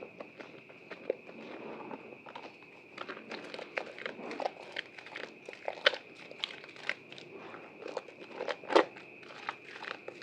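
Soaked white soap bar being squeezed and lathered by hand, giving an irregular run of small wet crackles and clicks, with one louder snap near the end.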